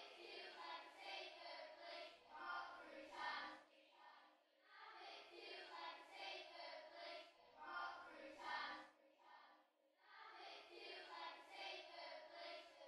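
A group of children singing quietly together, in phrases of a few seconds with short breaks between them.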